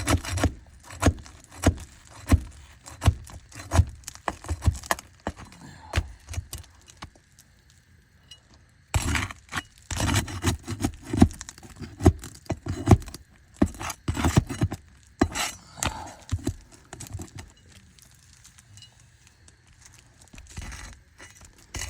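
Metal hand tools clicking, tapping and scraping against asphalt shingles as a shingle is worked loose, in irregular runs of sharp knocks with a short lull partway through.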